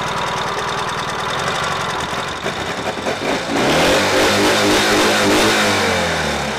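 Ural sidecar motorcycle's flat-twin engine running, then revved: its pitch climbs about halfway through, holds, and eases back down near the end.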